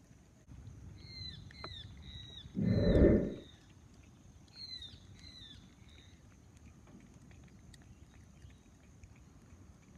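A tabby cat licking a plastic tabletop, faint and close to the microphone. A brief muffled rumble about three seconds in is the loudest sound. Short high falling chirps come in two runs of three or four, about one and five seconds in.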